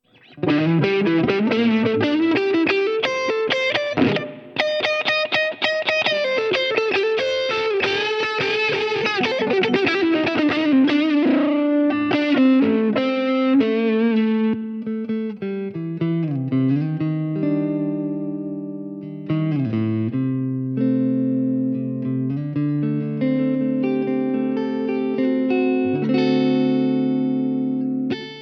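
Ibanez S320 electric guitar fitted with DiMarzio pickups, played in a tone demo: fast picked note runs for about the first ten seconds, then slower held notes and chords with a couple of brief pitch dips.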